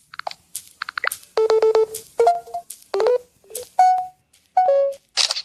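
Samsung Galaxy S25 Ultra notification and system sounds played one after another: a quick run of short electronic chirps, blips and little chime melodies, each under a second long, with a brief swoosh near the end.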